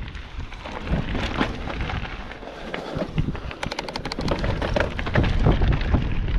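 Mountain bike rolling fast down a loose, rocky trail: tyres crunching and bouncing over stones, with the bike rattling and clattering at every hit. About halfway through there is a quick run of evenly spaced clicks, and under it all the wind rumbles on the helmet-mounted camera's microphone.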